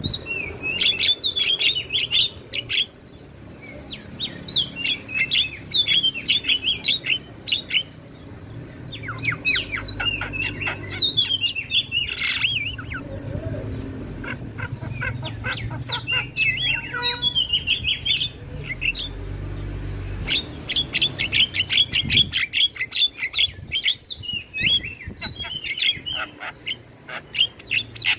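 Javan myna (jalak kebo) singing: long runs of rapid, varied chattering and whistled notes, broken by short pauses about 3, 8 and 21 seconds in.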